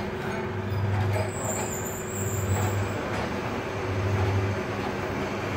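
Zip endurance tester running: a steady machine hum whose low drone swells and fades in a slow, even rhythm, about once every one and a half to two seconds, as the mechanism works through its opening and closing cycles.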